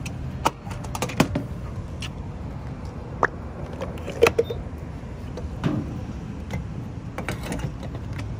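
Clicks and knocks of refuelling by hand: a Jeep's fuel door and filler cap being opened, then a gas-pump nozzle lifted from its holster and slotted into the filler neck. These are a handful of separate knocks, the loudest about four seconds in, over a low steady rumble.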